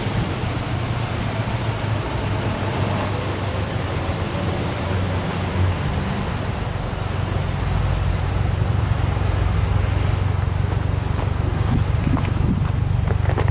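Subaru Impreza WRX STI turbocharged flat-four (boxer) engine idling steadily with a low, even exhaust note. The exhaust note grows a little louder and deeper about eight seconds in, as it is heard close to the tailpipe.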